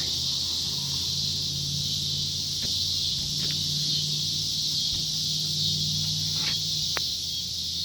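Steady high-pitched chorus of insects, over a low steady hum, with a few faint clicks in the second half.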